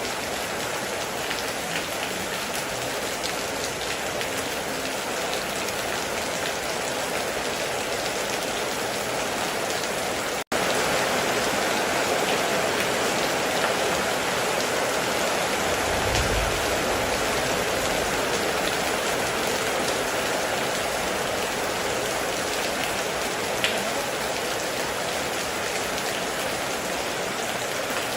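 Heavy rain drumming steadily on a metal roof, with scattered sharper drops. About ten seconds in it cuts out for an instant and comes back slightly louder. A brief low rumble follows a few seconds later.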